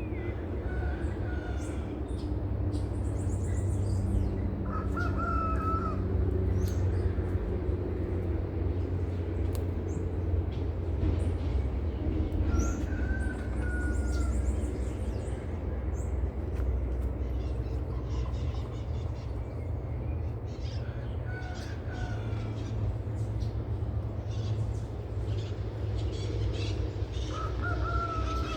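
A bird calling outdoors: a short clear call repeated five times at irregular intervals, over a steady low rumble.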